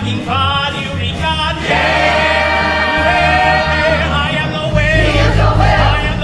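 A musical-theatre cast sings a show tune together over a band accompaniment with a pulsing bass line. A long held chord comes about two seconds in.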